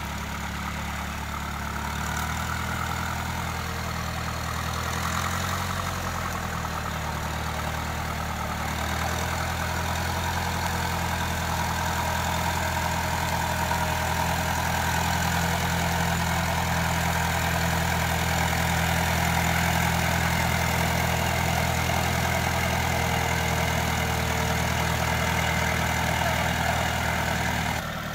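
Farm tractor's diesel engine running steadily at low revs, a little louder partway through.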